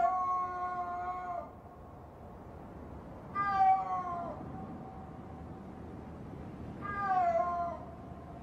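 Snow leopard calling three times, each a long pitched wail that drops at its end. It is a mating-season call, by which a female in breeding condition tells a male to come and join her.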